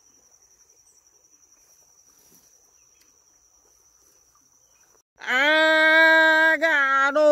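Faint steady cricket trill, then about five seconds in a person's loud, long drawn-out shout on a steady pitch, broken briefly twice.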